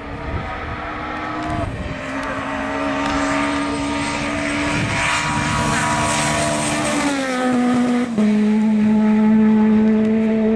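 Peugeot 208 rally car engine held at high revs as it approaches on a gravel stage, growing louder, with hiss from the tyres on the gravel. The revs dip briefly early on, then drop in two steps near the end and settle at a steady lower pitch as it slows for the corner.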